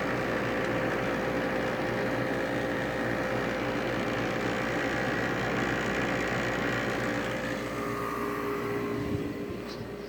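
Running air conditioner unit: a steady hum of the compressor and condenser fan, with a few steady tones in it. It grows quieter from about eight seconds in.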